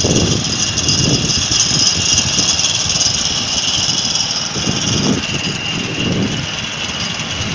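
Small Honda 6.5 HP single-cylinder boat engine, fitted with a gas converter kit, running steadily, over the rush of surf washing around the hull, with two stronger surges of water about five and six seconds in.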